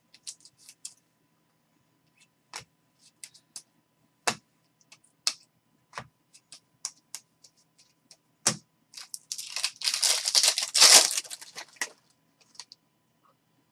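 Baseball trading cards being flipped through by hand, with scattered light clicks and snaps of card stock. Then, for about two and a half seconds near the end, the wrapper of a card pack is torn open and crinkled.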